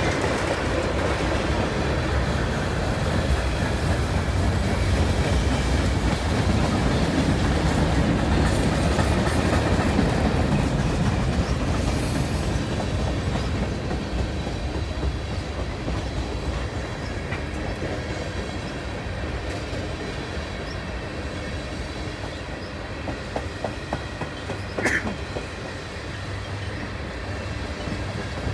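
Freight train of tank cars rolling steadily past, its wheels rumbling on the rails with faint clicks over the rail joints. A brief sharp metallic sound stands out near the end.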